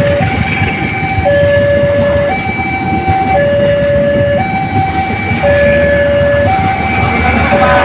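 Two-tone warning alarm switching between a low and a high note about once a second, steadily repeating, over the low rumble of a train running on the track.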